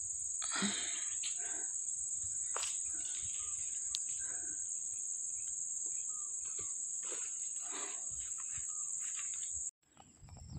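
A steady, high-pitched drone of insects, with a few faint ticks beneath it; it cuts off abruptly near the end.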